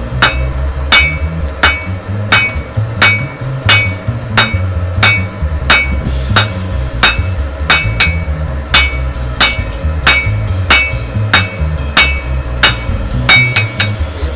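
Hand hammer blows on steel at the anvil, a steady forging rhythm of about two strikes a second with a short ring after each. Near the end there are a few quicker, lighter taps.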